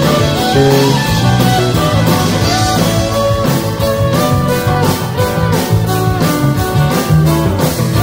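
A live band playing an instrumental passage: stringed instruments carry the notes while a drum kit keeps a steady beat.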